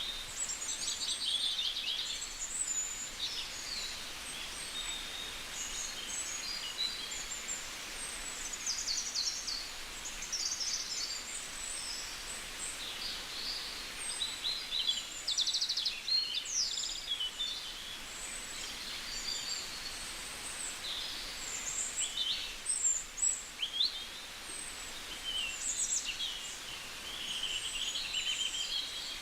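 A chorus of several songbirds chirping and trilling at once, many short high calls and quick rattling trills overlapping one another over a faint steady hiss.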